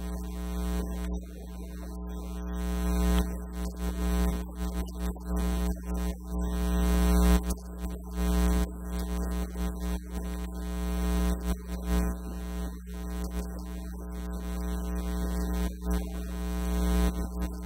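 Loud, steady electrical mains hum in the sound feed, a buzz with many evenly spaced overtones, over a fainter sound that rises and falls.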